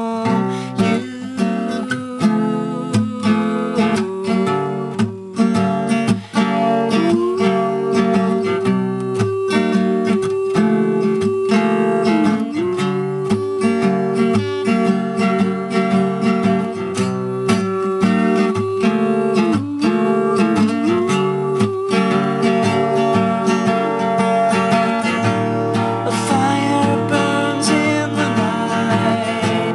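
Acoustic guitar strummed and picked in an instrumental passage, the chord strokes steady throughout. A long held wavering note runs above the chords for much of it.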